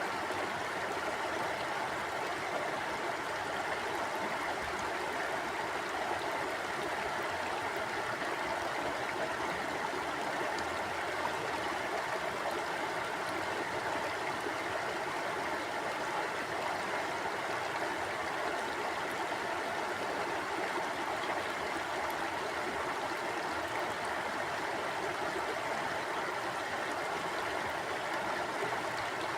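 Mountain stream flowing over rocks: a steady rush of water with gurgling, unchanging throughout.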